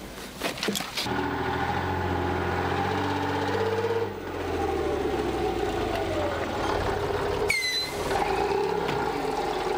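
BM-21 Grad rocket-launcher truck's engine running steadily as the truck drives forward. There are a few sharp knocks in the first second, and a brief high squeal that drops in pitch about three quarters of the way through.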